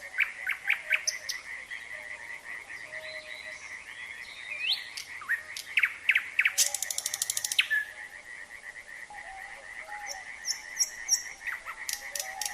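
A frog chorus keeps up a steady pulsing trill while a nightingale sings over it in short varied phrases: quick rising whistles and sharp clicks, and a fast buzzing rattle from about six and a half to nearly eight seconds in.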